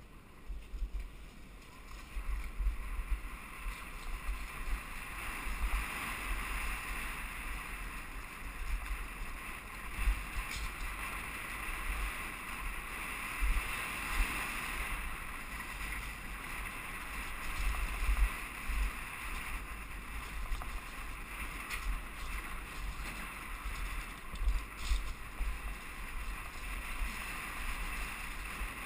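Wind rushing over a helmet-mounted action camera as a downhill mountain bike runs fast over cobblestones, with gusty buffeting, a steady rumble and a few sharp knocks from the bike rattling over the stones.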